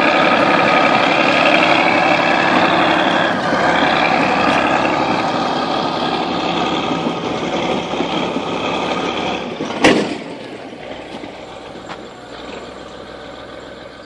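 Chetra crawler bulldozer's diesel engine running steadily under load. About ten seconds in a sharp click, after which the sound is much quieter.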